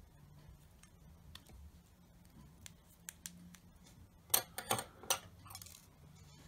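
Small metal parts of a lighter watch being handled and fitted together during reassembly: a few faint scattered ticks, then a quick cluster of louder clicks and clatter about four seconds in.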